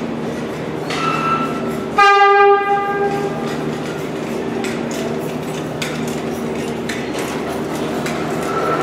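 New York City subway train horn sounding one short, loud blast about two seconds in, ringing off in the station. A shorter, higher tone comes just before it. A train's steady hum runs underneath.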